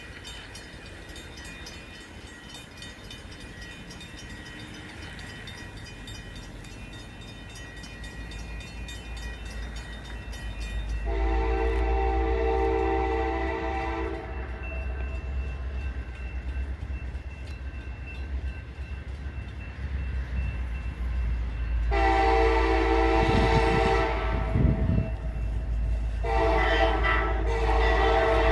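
Diesel locomotive horn blowing long blasts for a grade crossing as the train approaches: a three-second blast about eleven seconds in, then a longer one about twenty-two seconds in and another starting just after it, over a low rumble that grows louder. Before the horn, a grade-crossing bell rings steadily.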